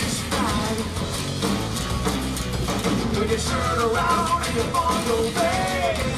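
Rock band playing live on acoustic guitars with a drum kit, a song passage between sung lines.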